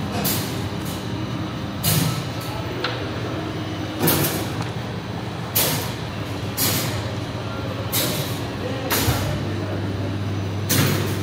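Metal serving spoon scraping rice from a large aluminium pot and knocking it onto a metal serving tray: a short, sharp scrape every second or two, over a steady low hum.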